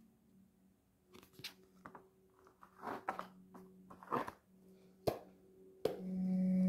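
Tarot cards being handled at a table: scattered soft rustles and taps as a card is laid down and the deck is picked up, with one sharp tap about five seconds in. A faint steady low tone runs underneath and grows louder near the end.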